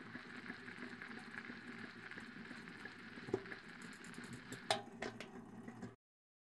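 Cylinder phonograph playing a wax cylinder with no music left on it: steady crackle and hiss of the cylinder's surface noise. About four and a half seconds in come a sharp click and a few smaller clicks as the reproducer is lifted off the cylinder, then the sound cuts off suddenly.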